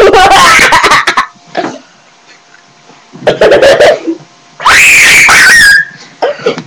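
A girl's voice shrieking and yelling in loud bursts, distorted by an overloaded webcam microphone. There is a long noisy outburst at the start, a shorter one about three seconds in, and a high-pitched shriek about five seconds in, with short gaps between them.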